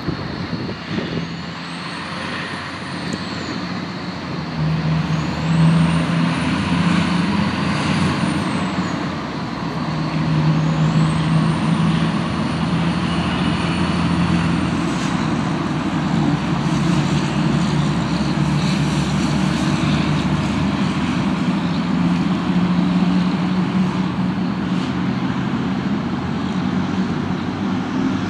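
Garbage truck engines running on the road amid traffic: a steady low engine drone that swells several times.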